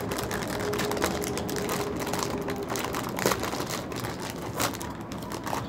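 Plastic snack bag crinkling as it is pulled and torn open by hand: an irregular string of small, sharp crackles.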